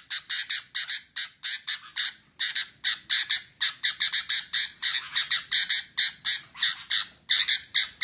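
Female sooty-headed bulbul giving a fast series of short, harsh chattering calls, about four a second, with a few brief pauses.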